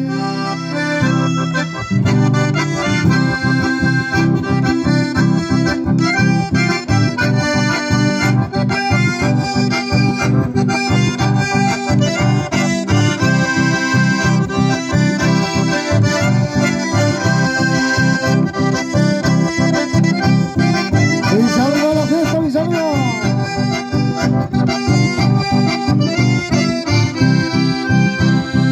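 Button accordions and a strummed acoustic guitar playing an instrumental folk passage over a steady, quick beat.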